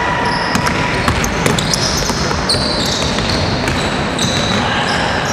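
Basketball being dribbled on a gym's hard court, with short high squeaks from sneakers on the floor as players run and cut, over a steady hall din.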